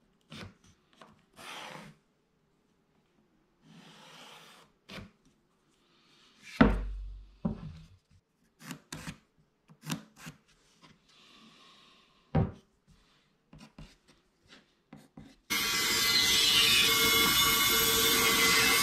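Pencil scratching and boards being handled and rubbed on a wooden workbench, with scattered small knocks and one heavy knock about six seconds in. About fifteen seconds in, a bandsaw is heard running steadily and loudly as a board is fed into its blade.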